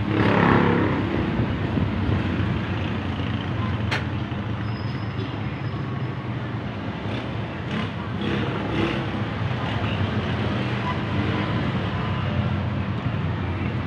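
Steady low rumble of motor vehicle traffic, with a louder surge in the first second and a single sharp click about four seconds in.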